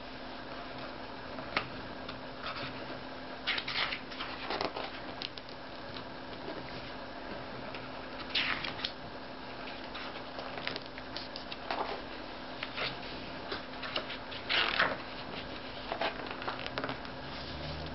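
Pages of a large hardcover book being turned and handled: short, irregular paper rustles and swishes, a handful of them spread across the stretch, over a steady low hum.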